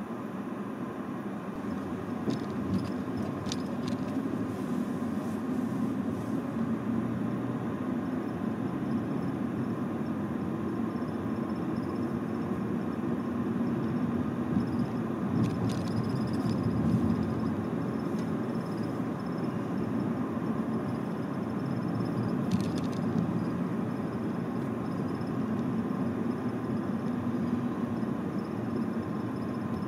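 Steady low rumble of road vehicle noise, with a few faint ticks.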